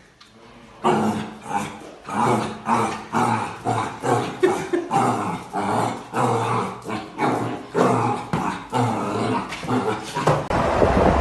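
Puppy barking over and over at its own reflection in a mirror, about two or three short barks a second, starting about a second in.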